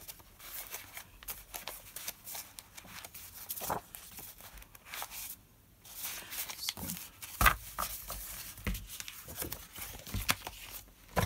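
Sheets of designer paper rustling and flapping as a pad is leafed through and handled, with small scrapes of paper on the table and one sharper knock partway through.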